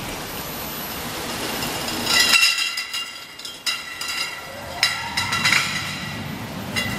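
Glass liquor bottles clinking against each other and the guides as they ride the conveyor of a WA Flex 514 case-packing line, over the steady running of the machine. Bursts of ringing clinks come about two seconds in and again around five seconds in, with a brief rising whine near five seconds.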